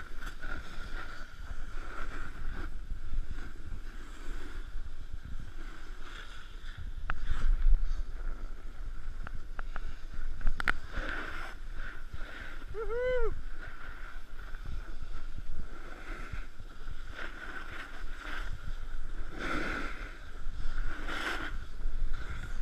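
Wind rushing over an action camera's microphone while snowboarding down a groomed piste, over the steady hiss and scrape of a snowboard carving packed snow. About halfway through, a brief pitched sound rises and falls.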